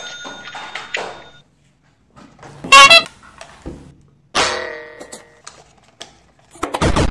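Electronic sound effects from battery-operated toy trains, set off one after another: a few short recorded horn and tune snippets with gaps between them, the loudest a brief horn-like toot about three seconds in.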